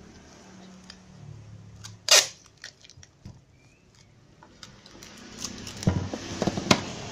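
Clear plastic packing tape being handled and pulled off its roll. There is one short, loud rasp about two seconds in, then crackly peeling with several sharp snaps near the end.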